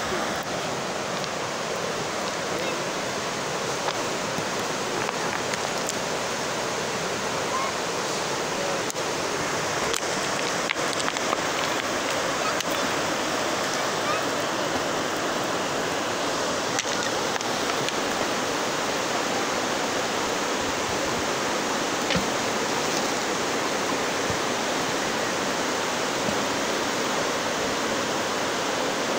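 River water rushing steadily over a line of rocks in shallow rapids.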